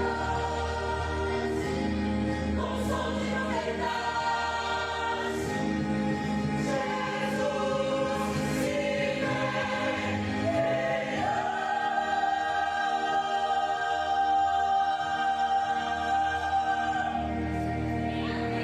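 Choir singing with trumpets, ending on a long held chord in the second half.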